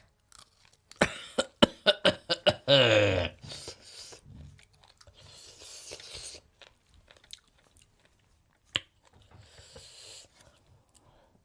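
Close-miked crunching and chewing of food by a person eating very spicy food. A quick run of sharp crunches comes in the first couple of seconds, then a short vocal groan. Hissing breaths follow later, as from chilli heat.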